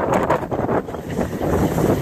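Wind gusting across the microphone: a loud, uneven rumble that rises and falls with the gusts.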